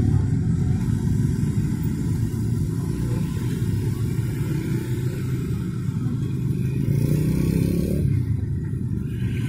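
Motorbike and scooter traffic passing close by, small engines running steadily, with one engine's pitch rising as it accelerates about seven seconds in.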